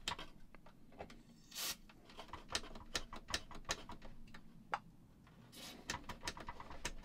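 Faint, irregular small clicks, with two short rubbing hisses, from the record/play slide switch of a radio cassette recorder being worked back and forth after it has been cleaned and lubricated.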